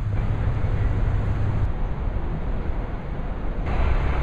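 Steady open-air noise on a cruise ship's deck: a low hum under a wash of wind over the microphone. The hum drops out about one and a half seconds in, and the noise grows louder and brighter near the end where the recording is cut.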